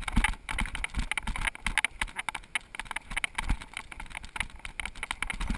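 Mountain bike clattering and rattling over a rough trail: a dense, irregular run of knocks and clicks, with a low rumble underneath.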